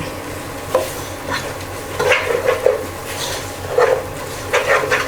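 A utensil stirring and scraping a thick masala of sautéed onion, ginger-garlic paste and ground spices around a pan of hot oil: irregular scraping strokes, about one a second, over a low sizzle.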